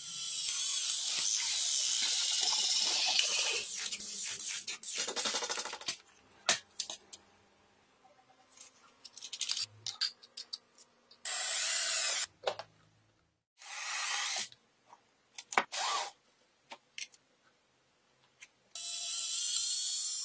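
A string of workshop noises cut one after another: hissing, rasping bursts of one to four seconds that start and stop abruptly, with scattered clicks and knocks between them. The last burst, near the end, is an electric drill boring a hole through a black panel.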